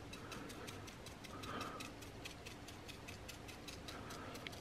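Faint, even ticking at about four ticks a second. A few soft brushing sounds come from a paintbrush dabbing paint onto a sand-textured jar.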